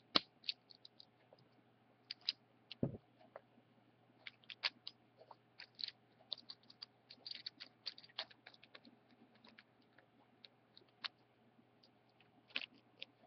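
Faint, scattered clicks and light rattles of small Beyblade parts (a metal fusion wheel and plastic face bolt, track and tip) being handled and fitted together by hand, with one dull knock about three seconds in.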